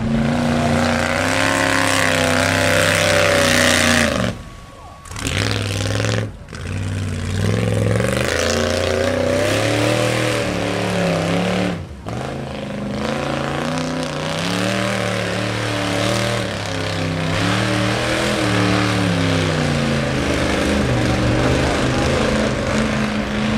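Lifted Ford pickup mud truck's engine revving hard through a mud slalom. Its pitch rises and falls again and again as the throttle opens and closes, and the sound drops out briefly about four seconds in and again near twelve seconds.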